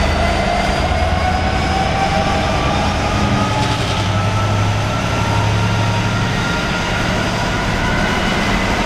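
Freight train passing at close range: a steady, loud rumble with a tone that slowly rises in pitch.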